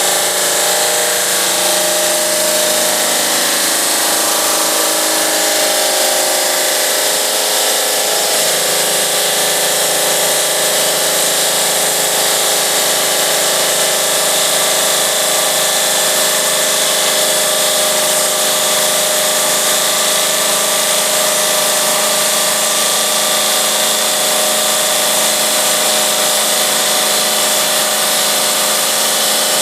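GMM Brio Easy CNC bridge saw running steadily, its diamond blade cutting 4 cm granite, with a constant machine whine and hiss. The tone shifts slightly about eight seconds in.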